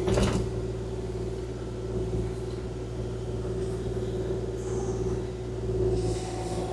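Kubota KX040-4 compact excavator's diesel engine running at a steady speed, with a constant low hum and a steady higher drone throughout, and faint hissing patches near the end.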